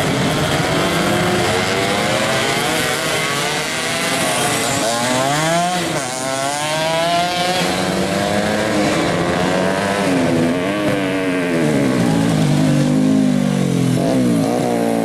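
Underbone race motorcycle engines revving hard, more than one at a time, their pitch rising and falling over and over as they are tuned.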